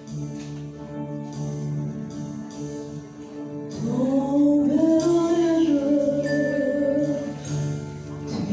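Live band music with keyboard and drums keeping a steady beat; about four seconds in a singer comes in, sliding up into a long held note that is the loudest part.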